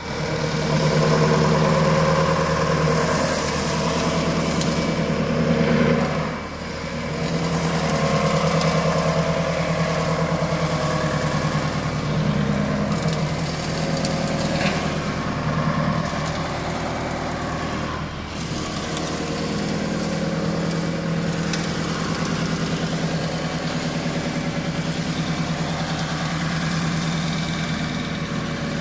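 Wood shaving machine running, its motor-driven cutter hum steady while a log is fed in and shavings are cut and thrown out. The pitch and load shift as the wood is cut, with brief dips in level about six and eighteen seconds in.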